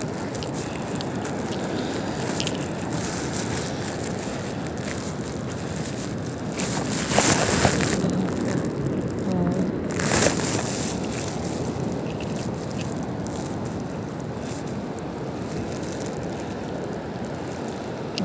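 Steady rumble of wind on the microphone and surf on a beach, with two louder rushes about seven and ten seconds in.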